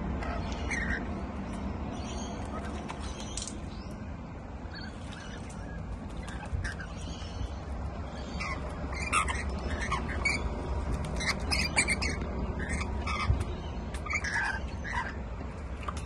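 Rainbow lorikeets giving short, shrill squawks while bathing and splashing in a small tub of water; the calls come thicker and louder in the second half. A steady low rumble runs underneath.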